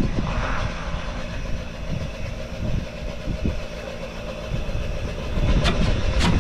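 Wind buffeting the camera microphone over a steady low rumble. Near the end, a few sharp scrapes and knocks of a shovel mixing concrete in a wheelbarrow.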